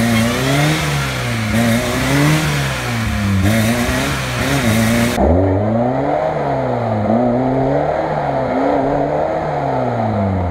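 Lada Niva engine revved up and down over and over, about once every second and a half, as the car strains through a deep mud rut.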